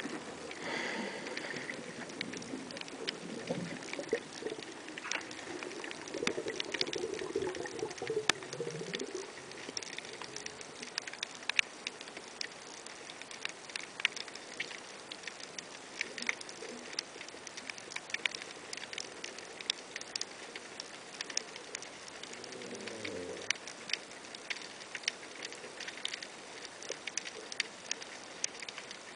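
Underwater crackle of snapping shrimp: dense, irregular sharp clicks, with low rumbling sounds about three to nine seconds in and again briefly around twenty-three seconds.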